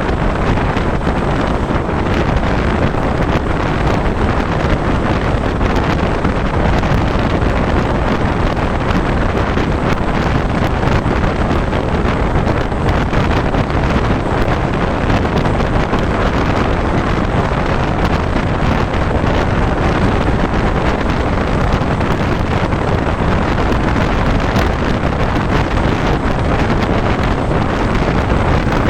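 Wind buffeting the microphone over the steady rumble of a moving train.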